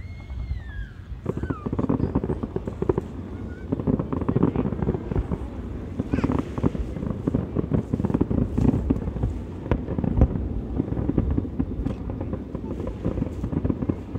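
Fireworks bursting in a rapid barrage: dense crackling and bangs, starting about a second in.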